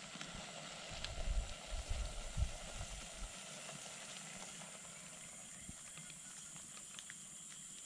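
Small wood campfire crackling with a few sparse pops, over a steady high-pitched hiss of rainforest ambience. A few low thumps from camera handling come between about one and three seconds in.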